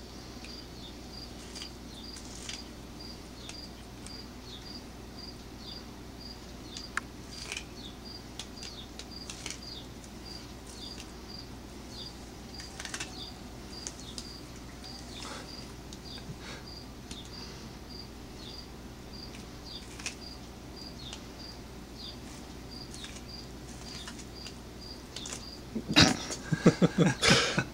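A cricket chirping steadily about twice a second, with scattered soft clicks of a cat chewing kernels off a corn cob. Near the end comes a short run of louder knocks and rustling.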